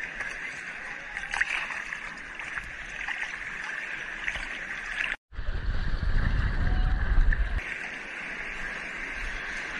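Sea water sloshing and splashing around a camera held at the surface, a steady hiss with small splashes. A brief cut about five seconds in is followed by about two seconds of heavy low rumbling of water buffeting the microphone.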